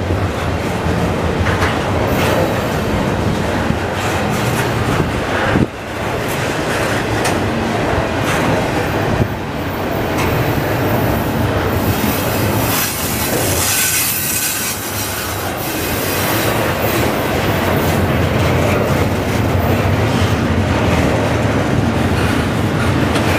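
Double-stack container train's well cars rolling steadily past, with loud wheel rumble and clicking over the rail joints. A high wheel squeal rises over the rumble about halfway through.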